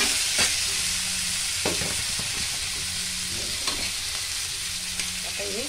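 Bitter gourd slices, onion and spices sizzling in hot oil in a metal kadhai. A metal spatula stirs them, scraping and knocking against the pan a few times.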